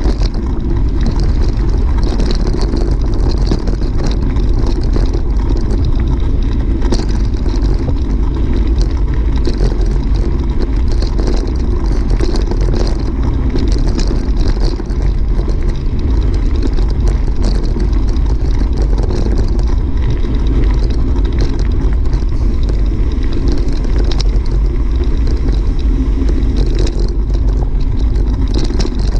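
Wind buffeting the microphone of a camera carried by a cyclist riding a gravel road: a loud, steady rumble, with the crunch and rattle of bicycle tyres over loose stones giving frequent small clicks.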